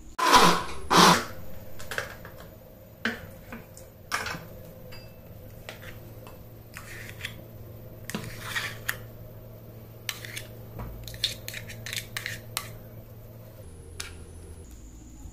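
A spoon scraping and tapping ground urad dal batter out of a steel mixer-grinder jar into a glass bowl: two loud clatters at the start, then scattered clinks and knocks of metal on metal and glass.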